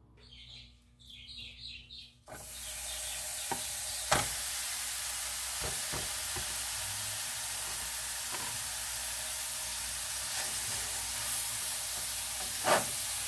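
Longaniza sausage starting to sizzle in a hot frying pan: a steady frying hiss that begins suddenly about two seconds in. A few sharp knocks from the spatula against the pan stand out.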